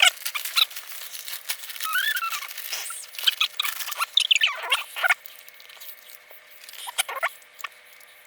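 Rapid clicks and rattles of plastic building bricks being handled and pressed together, with a few short squeaky sounds in the first half.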